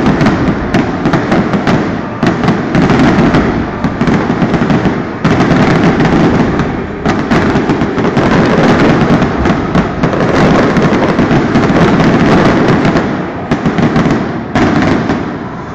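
Fireworks display: a dense barrage of shells bursting one after another, with continuous crackling and bangs. It dips briefly a few times and eases off near the end.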